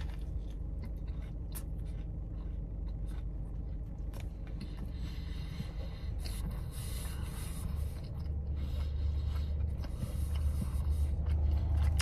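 Chewing a mouthful of burger with crispy onions and candied bacon: small wet clicks and crackles of the bite being worked, over a steady low hum inside the car's cabin that grows louder about eight seconds in.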